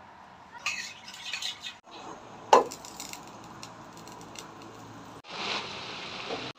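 A metal spoon scraping and clinking against a ceramic mug as powder is stirred in. A single sharp knock follows about two and a half seconds in, then a steady low hum, and near the end a short spell of even hiss.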